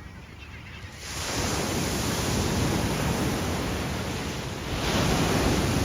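Ocean surf breaking on the beach: the wash swells up about a second in and surges again near the end.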